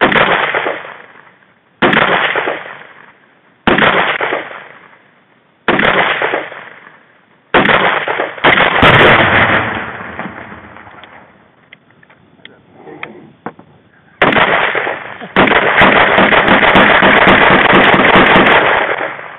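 Single gunshots from a Kel-Tec PLR-16 5.56 pistol, roughly every two seconds, each followed by a fading echo, with a longer pause after the sixth. About fifteen seconds in, a shot is followed by a Tannerite target detonating: a loud blast that stays loud for over three seconds before fading.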